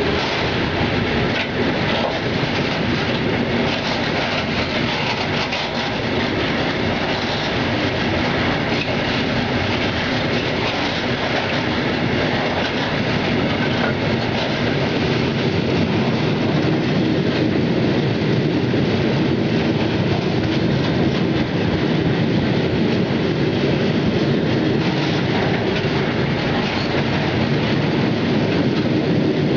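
Iron ore freight train's bogie hopper wagons rolling past close by: a steady, loud rumble of steel wheels on rail with repeated clacks over the rail joints.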